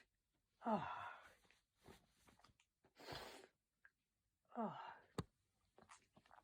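A person letting out three short, breathy vocal sounds: one about a second in, a noisier one around three seconds, and another about four and a half seconds in. The first and last fall in pitch. A sharp click follows just after five seconds.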